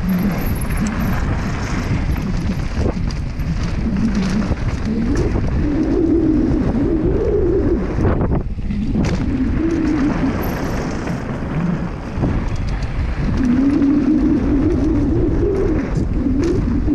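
Wind rushing over an action camera's microphone and knobby mountain-bike tyres rolling fast over hard-packed dirt, with a wavering hum that rises and falls with speed. The noise drops out briefly about eight and a half seconds in.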